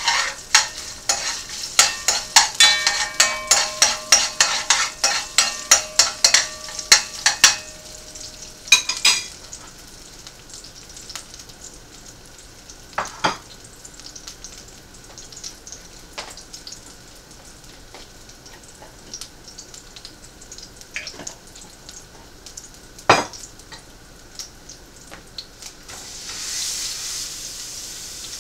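A metal utensil striking and scraping in a frying pan: a quick run of clicks with a ringing metallic tone for the first several seconds, then a few single knocks. Near the end, food goes into the hot pan and starts sizzling.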